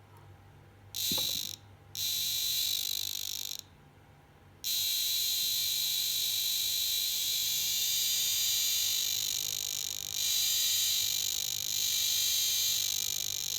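Homemade radiation detector with a reed switch as its detector tube, its CD4093 circuit sounding a rapid, high-pitched clicking buzz as it responds to an americium-241 source. Two short bursts about a second in, then continuous from about five seconds in.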